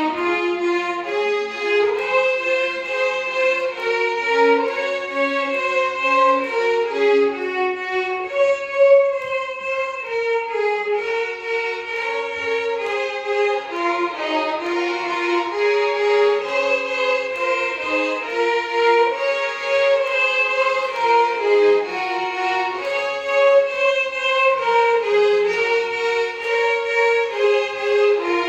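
Violin orchestra playing a Carnatic melody as one line, moving in held notes with sliding ornaments between them.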